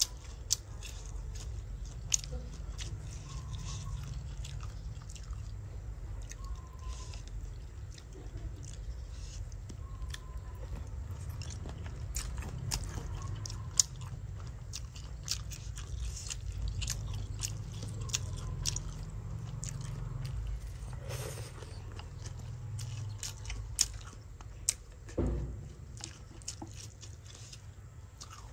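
A person eating fried pig intestine: chewing and biting, with many short, sharp crunches scattered throughout.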